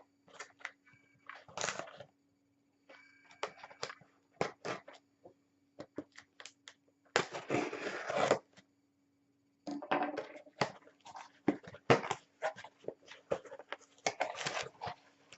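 A cardboard shipping box and its packing being opened by hand: scattered crackles, taps and rustles, with a longer stretch of rustling about seven seconds in and another about ten seconds in.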